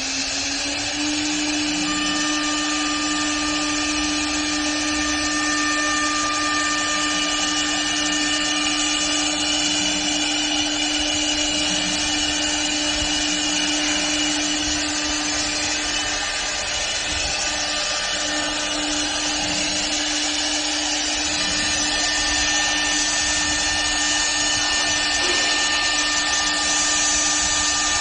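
CNC wood lathe running: a motor whine that rises in pitch as it spins up in the first second, then holds steady over the broad noise of the machine working the wood.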